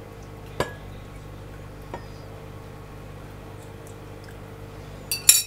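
Green chili enchilada sauce being poured and spread over rolled enchiladas in a pan, a soft wet sound, with a sharp click about half a second in. Near the end come two loud knocks, like a utensil against the pan.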